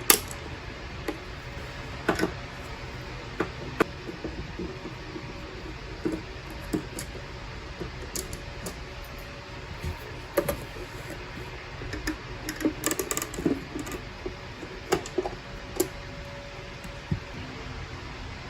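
Irregular light clicks and taps from hands handling small objects, a quick cluster of them a little past the middle, over a steady low background hum.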